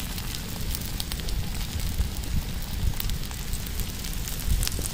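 Small open wood fire of sticks and dry palm fronds crackling under a cast-iron pan, with scattered sharp crackles over a steady low rumble.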